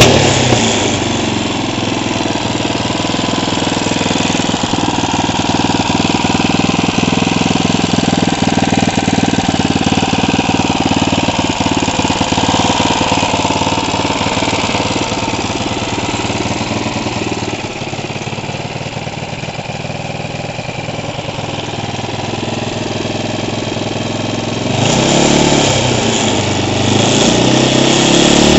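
Tuned open-class Honda GX200 single-cylinder four-stroke kart engine idling steadily, then revved up and back down about 25 seconds in, and rising again near the end.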